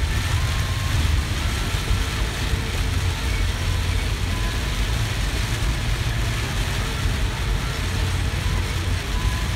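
Steady road noise inside a car driving on a wet road in heavy rain: a constant low rumble of engine and tyres under an even hiss of rain and spray.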